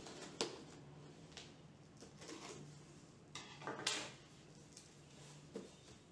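A cardboard shipping box being opened by hand: a knife scraping through the packing tape, then the cardboard flaps rustling and scraping as they are pulled open, with a few short sharp knocks, the loudest a little before four seconds in.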